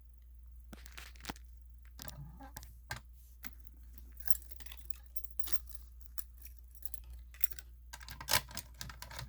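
Scattered small clicks, taps and rustles of objects being handled, growing busier and louder near the end, over a steady low hum.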